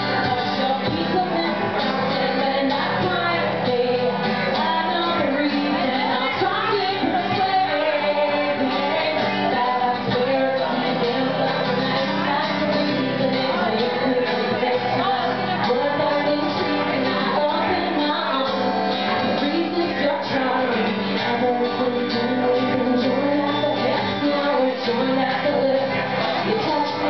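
A woman singing a song into a microphone while accompanying herself on acoustic guitar, performed live.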